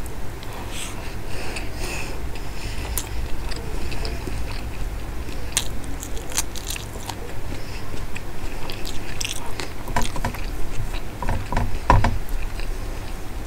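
Close-miked chewing and mouth sounds of eating mashed Bombay duck with rice by hand, in short crackly clicks. Near the end fingers scrape and gather the food on a metal plate.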